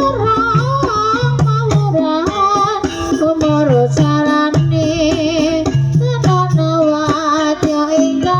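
Ebeg accompaniment music: a singer's wavering melody over tuned percussion and a steady drum beat.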